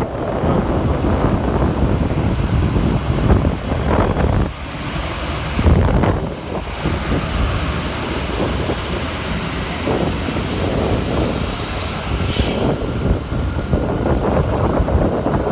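Road traffic going past, a steady rumble of engines and tyres with wind buffeting the microphone. A short hiss comes about twelve seconds in.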